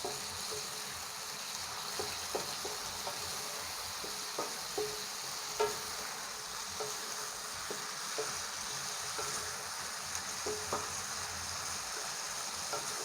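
Chopped squid and aromatics sizzling in hot oil in a frying pan while being stir-fried. The stirring utensil clacks against the pan at irregular moments over the steady sizzle.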